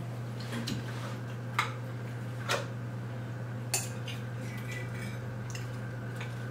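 Forks and spoons clinking and scraping against plates and bowls during a meal, with a few sharp clinks, three of them standing out between about one and a half and four seconds in. A steady low hum runs underneath.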